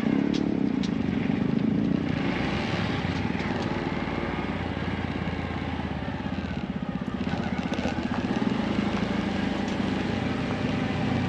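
Small single-cylinder motorcycle engine running steadily under way, its pitch and level rising and falling a little as the throttle changes.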